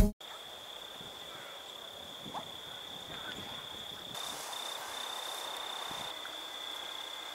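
An insect trilling one steady high note without pause over faint outdoor ambience, with a small knock about two and a half seconds in.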